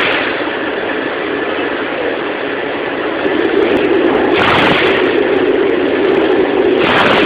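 Dual-column band saw running, its blade cutting through a 100 mm stainless steel 304 bar: a steady machine hum that gets louder about three seconds in. Two short bursts of hiss come near the middle and at the end.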